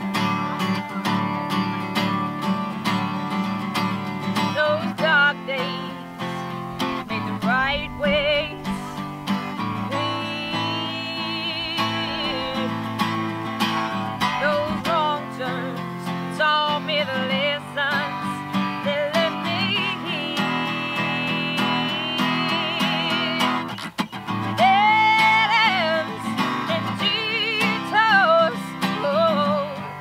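A woman singing a country song live, accompanying herself strumming an acoustic guitar. Her long held notes carry a clear vibrato.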